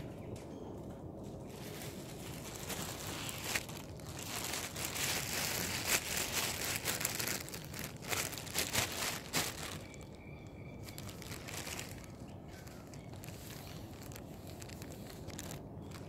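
Crinkly rustling and crackling close to the microphone, as something is handled, with many small clicks and loudest between about four and ten seconds in.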